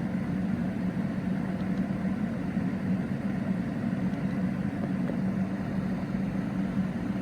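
Steady low hum of a Honda Civic's engine idling, heard from inside the car.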